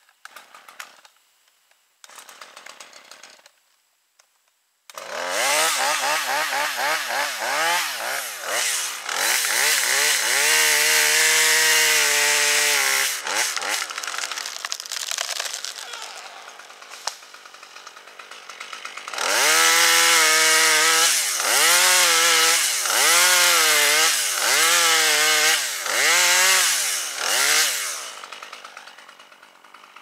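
A two-stroke chainsaw starts about five seconds in and is revved up and down over and over. It drops to a lower, quieter running speed for several seconds, then rises and falls again in a series of quick revs before cutting off near the end.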